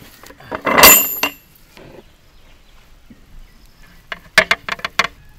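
Large aluminium cooking pot clanking about a second in, with a brief metallic ring. Near the end, five or six sharp knocks as a flat wooden paddle strikes and scrapes the side of the pot while stirring.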